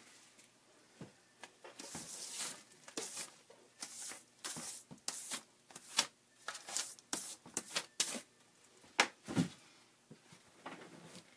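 Bristle hand brush sweeping scraps and grit across a tabletop: a series of quick swishing strokes, with a heavier knock about nine seconds in.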